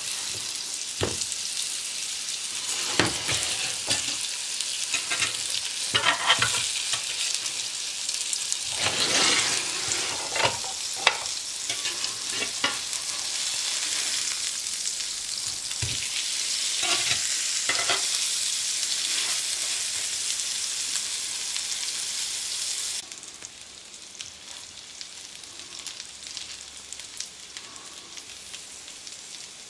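Potato-coated cheese sandwiches sizzling in a margarine-greased ridged grill pan, with scrapes and knocks of a metal spatula against the pan as they are turned. The sizzle drops suddenly to a softer level about two-thirds of the way through.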